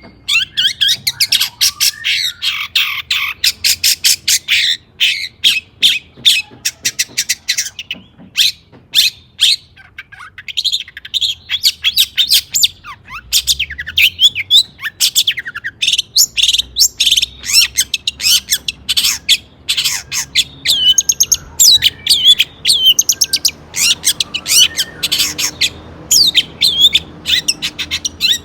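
Long-tailed shrike (cendet) singing a fast, harsh, chattering song of rapidly repeated sharp notes, with a brief thinner lull about eight to eleven seconds in.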